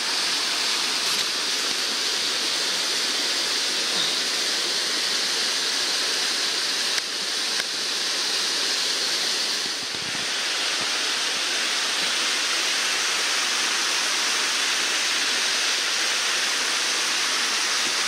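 Mountain torrent rushing over rocks, a steady, dense roar of water.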